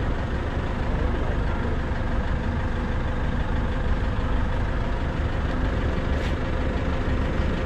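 Diesel fuel dispenser running while it pumps fuel into a car's tank: a steady low rumble with a faint even hum.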